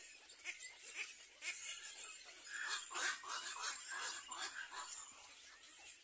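Black-crowned night heron nestlings begging at the nest: a run of short repeated calls, about four a second, strongest from about two and a half to five seconds in, with scattered single calls before.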